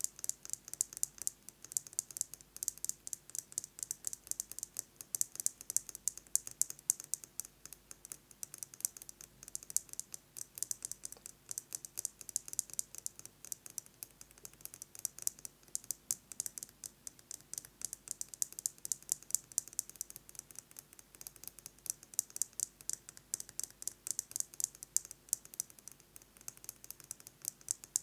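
Fingernails tapping fast on a metal lipstick case: a steady, dense stream of light, sharp clicks.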